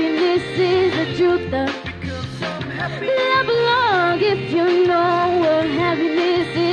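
A girl singing a pop song into a handheld microphone over a recorded backing track with a steady bass line, her voice holding and sliding between long notes.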